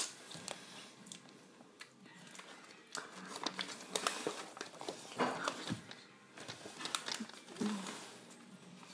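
Crinkling and rustling of a toy's cardboard box and plastic bags being handled, with scattered soft taps and clicks.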